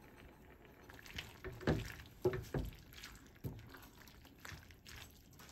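Pasta being stirred and tossed through a thick, creamy white ragù sauce in a skillet: a few irregular wet squelches and slaps as the utensil folds it, the loudest between about one and three seconds in.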